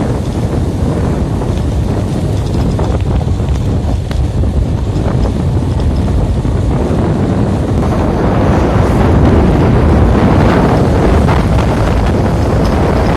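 Wind buffeting the microphone: a loud, steady rumbling noise that grows louder about eight seconds in.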